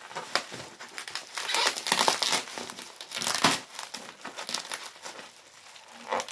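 Plastic bubble wrap crinkling and rustling as hands pull and fold it off a framed picture, in uneven spells, loudest around the middle.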